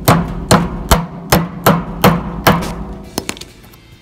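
A hammer driving a push-on metal axle cap onto a wheel's axle: about seven sharp blows, roughly two a second, then two light taps a little past three seconds in.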